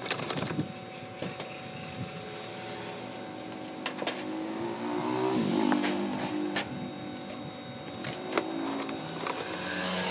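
Scattered clinks and light splashes as rusty metal scale parts are moved about in a tub of soaking liquid. A motor hums in the background, its pitch rising and dipping midway and again near the end.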